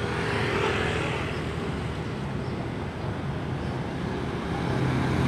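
Street traffic: motorcycle engines running and passing over a steady hum of road noise, with a swell as a vehicle goes by about a second in.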